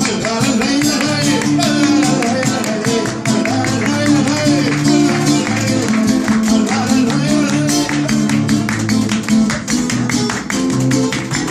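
Instrumental music: a guitar strummed briskly, with sustained lower notes beneath.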